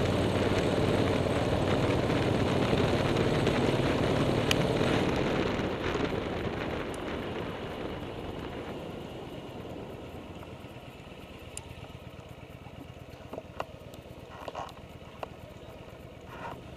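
Vehicle engine pulling steadily up a steep mountain road, then easing off and dropping in level from about five seconds in as it slows for a hairpin bend. A few light knocks are heard near the end.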